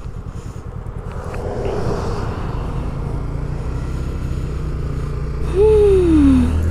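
Honda Grom 125's single-cylinder four-stroke engine pulling away and accelerating, with wind on the microphone, after a truck rushes past about two seconds in. Near the end the engine note drops sharply as the revs fall at a gear change.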